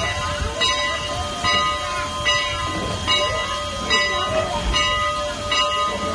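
Steam locomotive bell ringing steadily, about one strike every 0.8 seconds, with a low rumble and faint voices of onlookers underneath.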